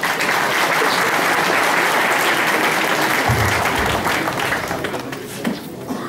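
Audience applauding, the clapping thinning out near the end, with a low thud a little past halfway.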